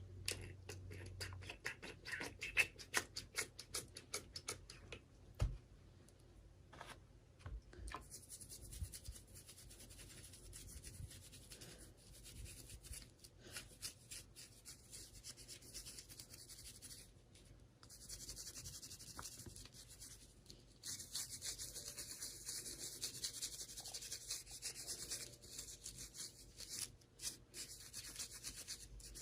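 Hands handling toy packaging close to the microphone: a run of quick light clicks in the first several seconds, then a faint steady rubbing and scratching rustle with occasional clicks.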